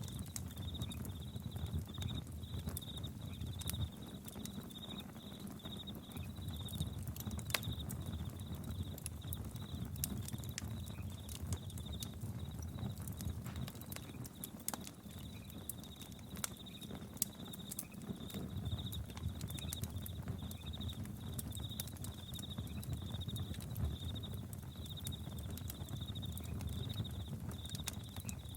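Campfire crackling with scattered sharp pops over a low, steady rumble, while crickets chirp in a steady run of high pulses.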